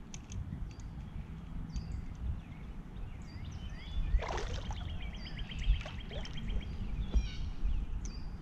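Water sloshing and mud squelching around boots wading in the shallow edge of a pond. Birds chirp repeatedly, with a rapid trill about halfway through that lasts around two seconds.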